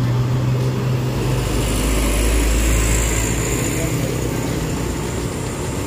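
A truck driving past on the road: a steady engine hum, then a deeper rumble with tyre hiss that swells a couple of seconds in and eases off.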